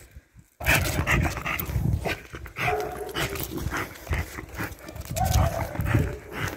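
Agitated, aggressive dog lunging on a leash, making a few short pitched sounds over scuffling, clicking handling noise. The sound starts suddenly about half a second in, after a brief dropout.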